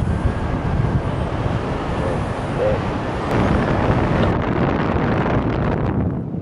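Wind noise from airflow over the microphone of a paraglider pilot's camera in flight: a steady, dense noise heaviest in the low range, its upper hiss thinning out from about four seconds in.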